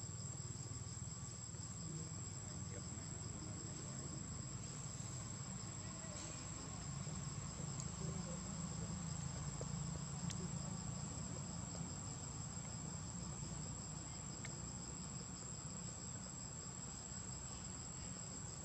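Forest insects shrilling steadily: one continuous high-pitched tone with a fainter, rapidly pulsing trill beneath it, over a low rumble.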